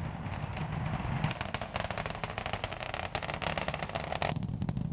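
Space Shuttle Columbia's launch recording played over loudspeakers: a steady rocket-exhaust rumble with dense crackling that starts about a second in and thins briefly near the end.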